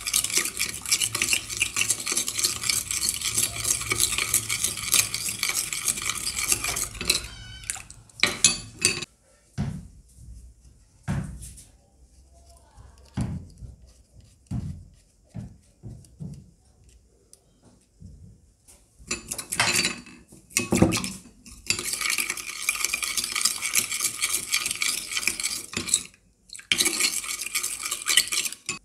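Red plastic spoon stirring a runny white slime mixture in a small glass bowl, fast scraping and clinking against the glass. Around a third of the way in the stirring stops for a stretch of scattered separate clicks and knocks, then fast stirring starts again near the end.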